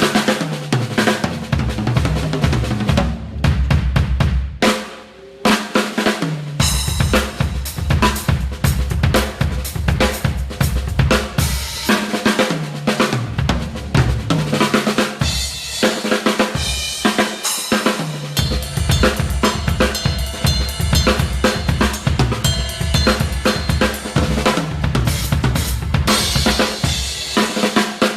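Drum kit played hard in a sound check: fast, busy patterns on a Gretsch Catalina Birch snare and bass drum, with Zildjian A Custom crash cymbals and hi-hats. A short quieter break comes about five seconds in, then the playing resumes.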